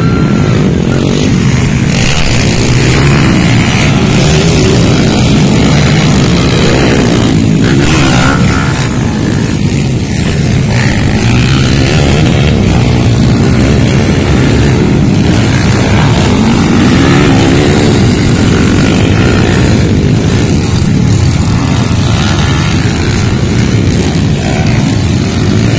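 Dirt bike engines revving on a motocross track. They are loud and continuous, with the pitch rising and falling as the throttle opens and closes.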